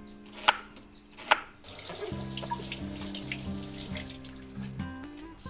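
Two knife strokes cutting through an onion onto a wooden chopping board in the first second and a half, then a kitchen tap running into a steel sink as a bell pepper is rinsed under it by hand.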